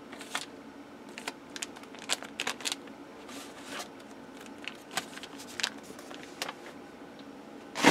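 Packaging being handled: a clear plastic bag and cardboard crinkling and rustling in short scattered bursts with light knocks, over a faint steady hum, and a sharper knock near the end.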